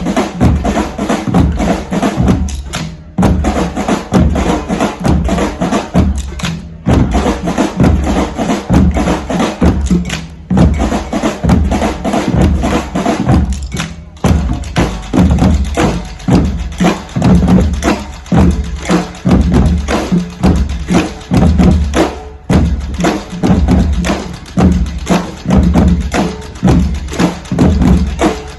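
Drumming group playing a driving rhythm together on many drums, with deep bass-drum beats under sharp stick and rim clicks. The groove stops for a split second every few seconds and comes straight back in.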